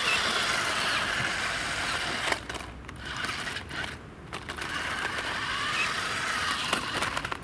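Small electric motors and plastic gearbox of a Virhuck Stunt X toy RC stunt car whirring as it drives over asphalt. A knock comes about two seconds in as it hits a ramp, the whirring drops away for about two seconds, then picks up again.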